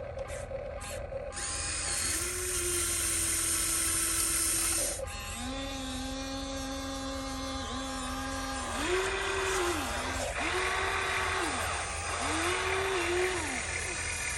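Small electric motors of a radio-controlled model excavator whining as they run, the pitch climbing as each one starts and falling as it stops, in several separate runs: one long, then three shorter ones close together near the end.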